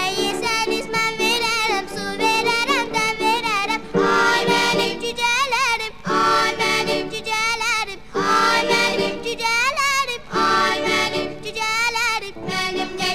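Background song: a singing voice with a wavering vibrato carries a melody over steady instrumental accompaniment.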